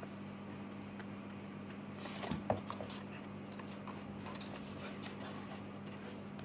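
Pages of a K-pop album photobook being handled and turned, with paper rustling and a soft knock about two and a half seconds in, then light rustles and clicks, over a steady low hum.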